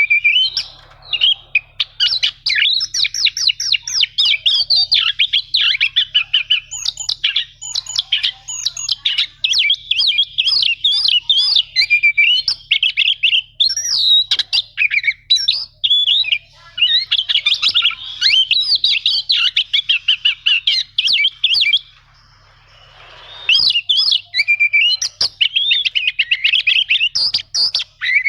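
Oriental magpie-robin (kacer) singing a fast, varied song of rapid chattering and whistled phrases, broken by a short pause about 22 seconds in.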